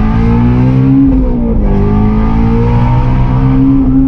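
Ford Shelby GT350R's 5.2-litre flat-plane-crank V8 heard from inside the cabin under way, its pitch climbing, dipping briefly about one and a half seconds in, then climbing again and holding steady.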